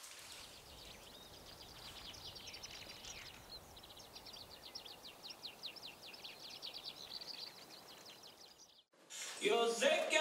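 Outdoor ambience: a faint steady hiss with rapid high-pitched chirps repeating several times a second. After a brief dropout, music starts about nine seconds in.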